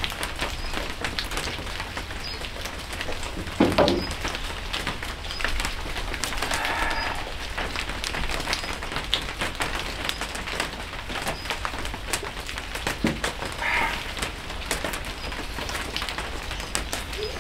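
Steady rain patter with many small drips, a single knock about four seconds in, and two short pitched calls, the first about a third of the way in and the second near the end.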